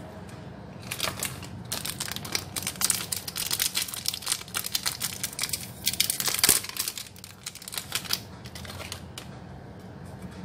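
Paper cake liner and plastic snack wrapper crinkling as they are peeled off and handled, in quick crackly bursts that start about a second in and thin out near the end.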